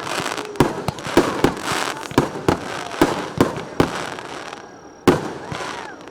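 Aerial firework shells bursting in quick succession, about two or three sharp bangs a second over the first four seconds, dying away, then one loud single bang about five seconds in.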